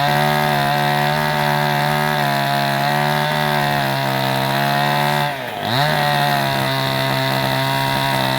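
Chainsaw running at high speed, cutting. About five seconds in its engine note dips sharply and climbs back within half a second.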